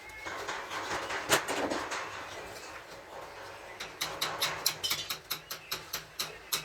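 Hand work on gearbox parts. There is a scraping rub with a sharp knock about a second in, then a quick run of light sharp taps, about four or five a second, near the end.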